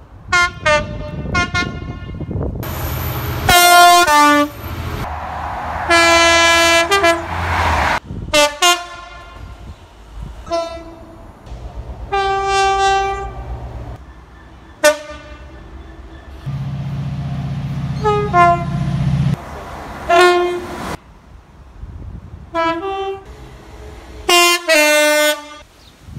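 A run of British train two-tone horns sounding one after another, each stepping between a high and a low note. Most are short blasts; a few are held for a second or two. A low hum sits beneath some of them.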